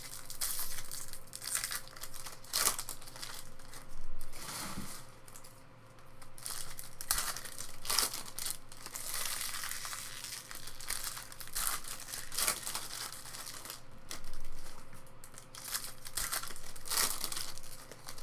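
Foil wrappers of 2018 Topps Chrome trading card packs crinkling and tearing open in the hands, with cards slid and shuffled between them, in an irregular run of rustling bursts.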